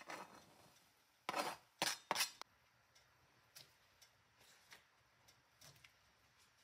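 A plastic cutting board knocking and scraping against the rim of a cast-iron skillet as chopped parsley is pushed off it into the sauce: a click at the start, then a quick run of sharp clatters about a second and a half in, followed by a few faint ticks.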